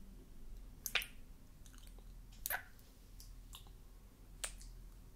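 Wet mouth clicks and lip smacks, kisses pressed against the skin of a hand and forearm. There are three sharp ones, about a second in, about halfway through and near the end, with fainter ones between.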